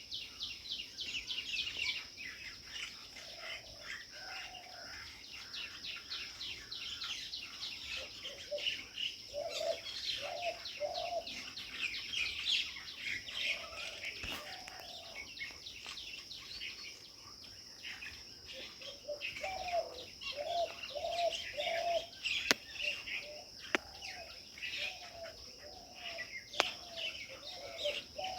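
Many birds chirping and twittering in a village tree over a steady, high insect drone. A lower bird call repeats in short runs of three or four notes, and a few sharp ticks come in the second half.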